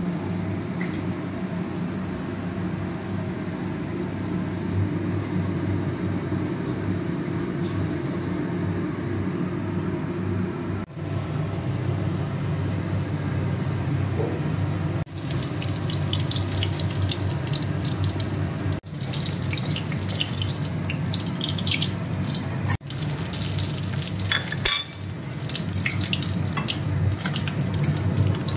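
A steady low hum, then hot mustard oil sizzling in a wok with whole spices (dried red chillies, bay leaves, seeds) crackling in it. Dense crackles fill the second half. The sound breaks off sharply several times.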